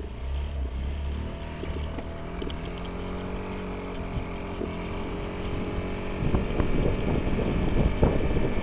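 A 2003 Honda Metropolitan scooter's small four-stroke engine pulls away and accelerates, its pitch rising. The sound grows rougher and noisier from about six seconds in as speed builds.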